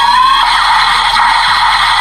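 DX Desire Driver toy belt with the Boost buckle playing its finisher sound effect through its small built-in speaker: tinny electronic music and effects, with a tone rising in pitch that ends about half a second in.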